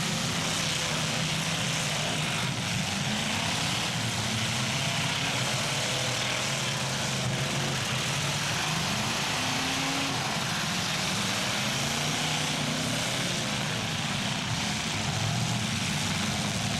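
Engines of several full-size demolition derby cars running and revving together, making a dense, steady engine noise whose pitches rise and fall.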